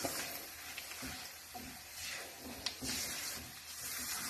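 Silicone spatula stirring peppers and onions in a hot non-stick frying pan: soft scraping strokes over a faint sizzle, with a couple of light clicks of the spatula on the pan.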